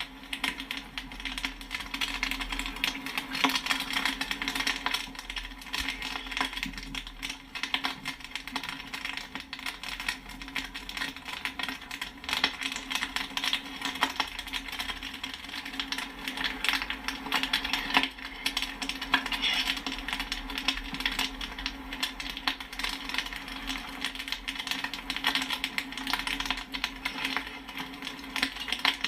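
Popcorn kernels popping in a dense, continuous stream of overlapping sharp pops and pings, over a steady low hum.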